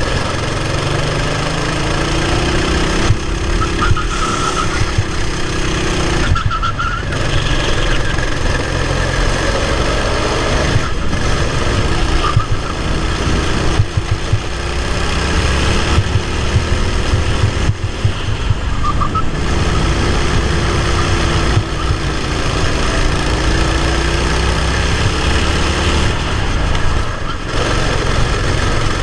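Racing kart engine heard onboard, revving up along the straights and falling in pitch several times as the driver lifts off for corners.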